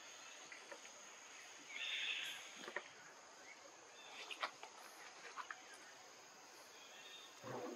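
Forest ambience with a steady high-pitched insect drone, broken by a short noisy rustle about two seconds in and a few scattered sharp clicks and snaps.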